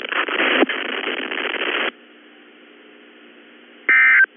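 Weather radio broadcast: loud static hiss that cuts off abruptly about two seconds in, leaving a faint hiss. Near the end comes a short, shrill electronic warbling data burst, the first EAS end-of-message burst that closes the test warning.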